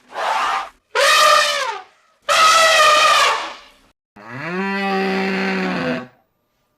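Farm animal calls: three short, high calls that drop in pitch at their ends, then one longer, low moo-like call that rises and holds steady.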